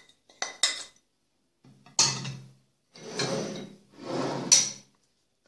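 A ceramic plate being handled on the dish and the wooden tabletop: two light clinks, then three scraping, rubbing sounds about a second apart, the last ending in a sharp knock as the plate is set down.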